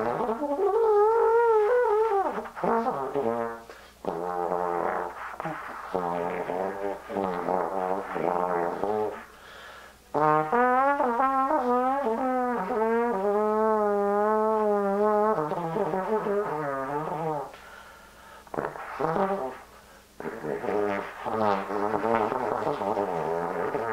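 Solo trombone playing freely improvised microtonal phrases with sliding pitch, in several phrases with short breaks between them. The longest phrase, about ten seconds in, holds a wavering note for some five seconds.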